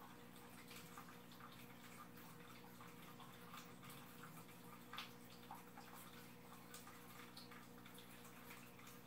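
Faint aquarium filter running: a low steady hum with water trickling and small drips, one slightly louder drip about five seconds in.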